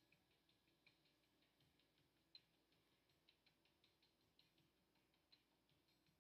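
Near silence with faint, irregular light ticks a few times a second: a small paintbrush dabbing paint onto a painted board.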